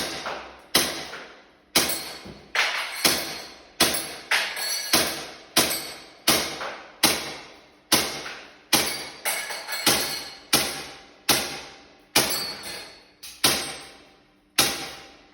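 E&C Glock 18c airsoft pistol firing single shots at a steel Texas star target, each shot a sharp crack followed by a brief metallic ring from the struck plate. The shots come in a steady string, roughly one every half second to second.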